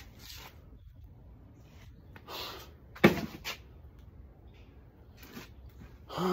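A single sharp knock about three seconds in, with a lighter knock half a second after it and a brief rustle just before.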